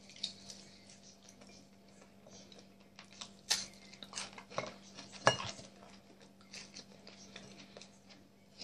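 Metal fork clinking and scraping against a plate in small clicks, loudest twice near the middle, the second clink ringing briefly, with quiet chewing in between. A steady low hum runs underneath.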